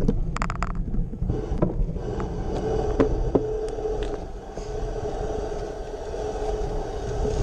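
Bicycle rolling slowly over cobblestones: a constant low rumble through the camera mount with scattered rattles and clicks, and a faint steady whine a few seconds in.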